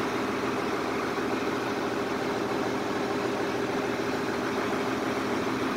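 Diesel engine running steadily at a constant idle, an even hum with no change in speed.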